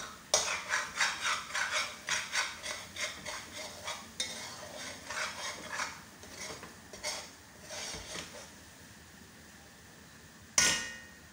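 Metal spoon stirring and scraping thick egusi soup in a metal pot on the stove, in quick repeated strokes for the first several seconds and then slower ones. Near the end comes one sharp, ringing metal clank.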